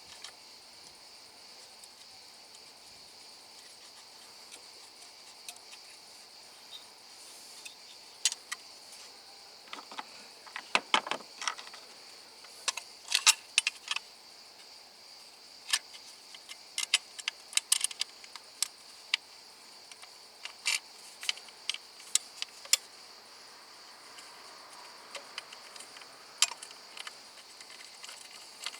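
Irregular sharp metallic clicks and clinks of hand tools and parts being handled, starting about a third of the way in and bunching in the middle, over a steady high-pitched background drone.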